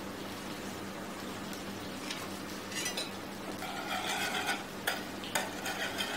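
A metal utensil whisking a butter sauce in a frying pan over a low flame, as butter is mounted piece by piece into a cream reduction. Quick scraping strokes against the pan start about halfway through, with two sharp clinks, over a steady low hum.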